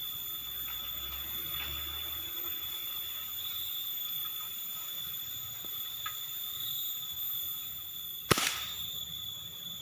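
A single sharp shot from an air rifle about eight seconds in, over a steady high-pitched insect drone.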